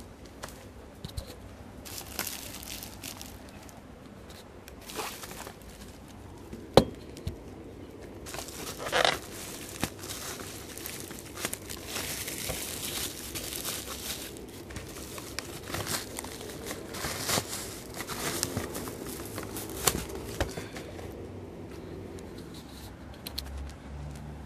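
Plastic bubble wrap being handled and pulled off a package, crinkling and rustling unevenly with scattered sharp crackles; the loudest is a single snap about seven seconds in.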